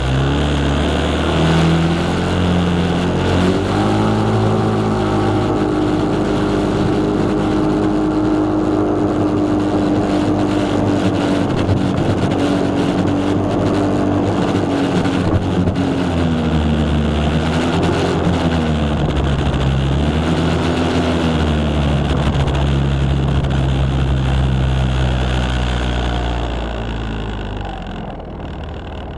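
Yamaha Cygnus X scooter's single-cylinder four-stroke engine running while riding, its pitch rising and falling several times with the throttle, over a steady rush of wind and road noise. Near the end it drops in level as the scooter eases off.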